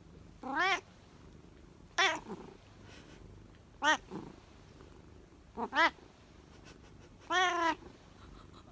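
A domestic cat meowing repeatedly: about six separate meows a second or two apart, two of them in quick succession about two thirds of the way through, and the last one longer and drawn out.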